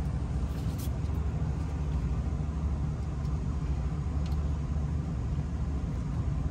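Steady low rumble and hum of rooftop air-conditioning equipment running, with a couple of faint light clicks as the compressor's terminal cover is handled.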